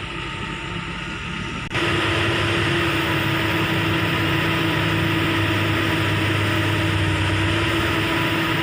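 Diesel dump truck engines running steadily with a constant hum; the sound steps up suddenly about two seconds in and stays even after.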